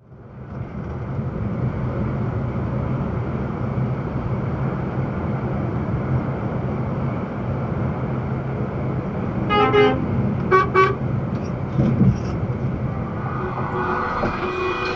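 Steady engine and road noise from a moving truck, with two short horn toots about ten seconds in and more horn sounding near the end.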